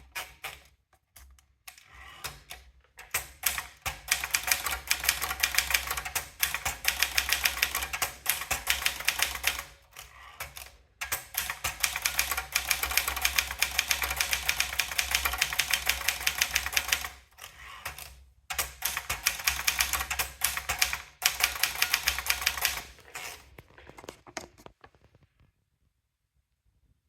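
Brother Deluxe typewriter being typed on: rapid, continuous key strikes in three long runs broken by short pauses, with a low hum underneath, trailing off near the end.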